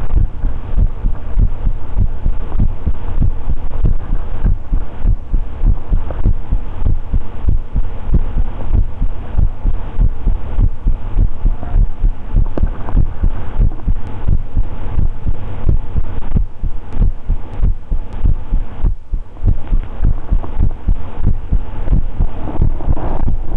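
A man's heartbeat recorded close up and loud: a steady run of low, dull thuds repeating at an even pace.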